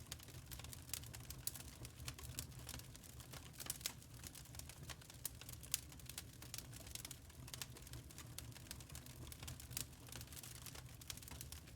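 Wood fire in a fireplace crackling: irregular sharp pops and snaps of burning logs, several a second, over a steady low rumble of the flames.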